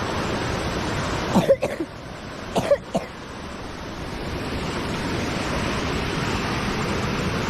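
Steady rushing of a waterfall and stream. Two short, sudden sounds stand out over it, about a second and a half and nearly three seconds in.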